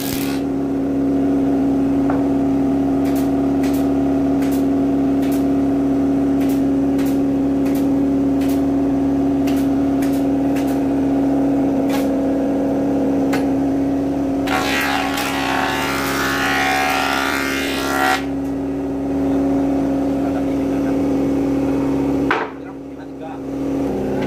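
Wood jointer (surface planer) running with a steady motor hum while a long timber board is pushed over its bed, with a string of sharp clicks. Past the middle comes a loud hissing stretch of a few seconds as the cutterhead planes the wood. The sound drops away abruptly near the end.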